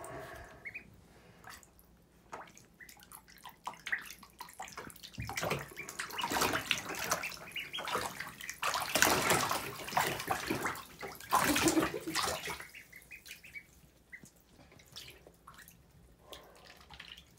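Ducklings splashing as they paddle and dash through shallow water in a bathtub, with a spell of heavy splashing from about five to twelve seconds in.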